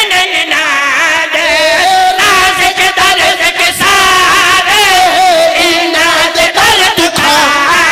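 A single voice chanting a verse in long, drawn-out melodic phrases with a wavering, ornamented pitch, in the sung style of a zakir's recitation at a Muharram majlis.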